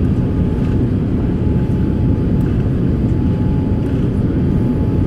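Steady roar of a jet airliner's engines and rushing air, heard from inside the passenger cabin on final approach with the flaps lowered, with a faint steady whine above it.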